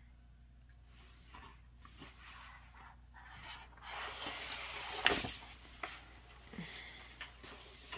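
Large glossy paper posters rustling as they are handled and turned over. The rustling is loudest from about four to five seconds in, with a sharp snap or tap at about five seconds and a few light ticks after.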